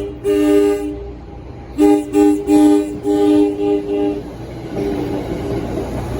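Locomotive multi-chime air horn sounding a chord in a horn-show pattern: one longer blast, then a quick run of short blasts that trail off about five seconds in. A low steady rumble from the locomotive runs underneath and carries on after the horn stops.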